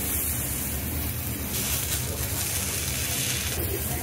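Food sizzling on a hot teppanyaki iron griddle: a steady hiss over a low hum.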